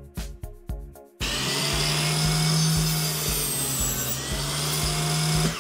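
Table saw cutting through a strip of plywood: a loud, steady run of blade noise over a low motor tone, starting about a second in and stopping abruptly near the end. Background music with a beat plays before it.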